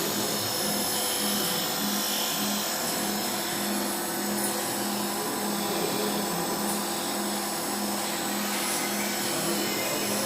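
Polyurethane gasket dispensing machine running: a steady mechanical whirr with a low hum that pulses a couple of times a second.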